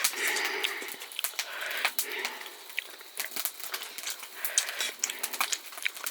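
Close-up eating sounds of spicy instant noodles: slurping and chewing with many small wet clicks, and hissing breaths drawn in against the chili heat.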